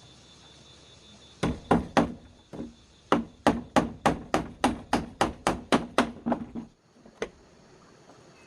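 A run of about eighteen sharp striking blows, a few uneven ones first and then a steady beat of about three a second, stopping suddenly, followed by one last blow.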